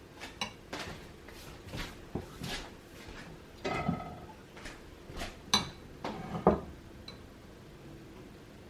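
Metal fork clinking and scraping against a bowl while stirring, in an irregular run of taps and short scrapes with a few louder knocks a little past the middle.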